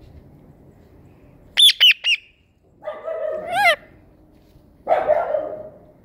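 Rose-ringed parakeet calling: three short, sharp chirps about a second and a half in, then a longer call that rises in pitch at its end, and a harsher call near the end.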